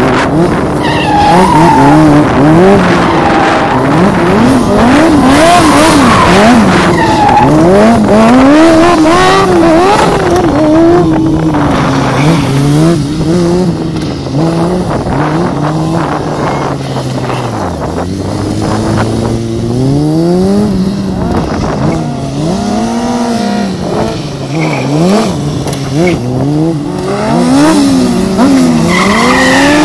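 Sport motorcycle engines revving hard, pitch rising and falling over and over as the throttle is worked during wheelies and tight turns, with revs dropping low briefly about two-thirds of the way through.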